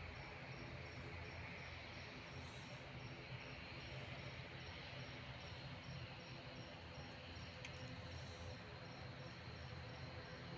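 An insect chirping in high, even pulses about three times a second over a steady low hum.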